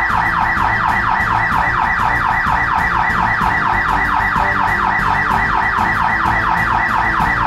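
Electronic burglar alarm going off: a loud, fast repeating sweep about five times a second, signalling a break-in.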